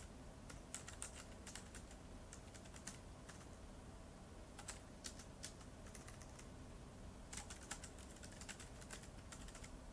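Faint typing: key clicks as Japanese text is typed into an iPad. A few clicks near the start, only scattered ones in the middle, then a quick run of typing over the last few seconds.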